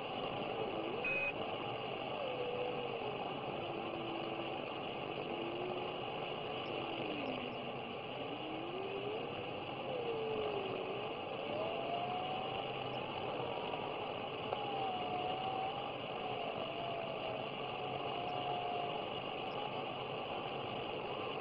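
Radio static: a steady hiss with a single faint whistle that wanders slowly up and down in pitch, and one short high beep about a second in.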